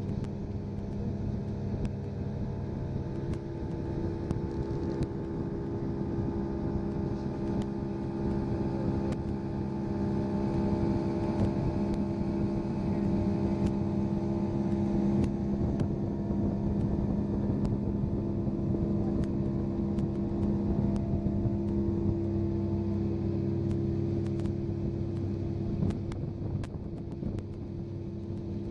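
Mercury outboard motor running steadily, driving a boat along under power. It gets louder about a third of the way in and eases a little near the end.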